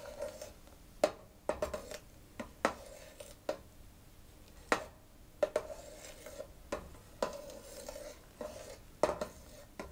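Metal ladle stirring a hot liquid in a stainless steel pot, clinking and scraping against the sides with a dozen or so irregular clicks, as agar powder is worked in to dissolve in sugarcane juice.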